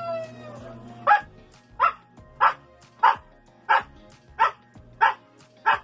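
Siberian husky barking eight times in a steady, even rhythm, about one bark every two-thirds of a second, starting about a second in: counting out the answer to the sum 3 + 5.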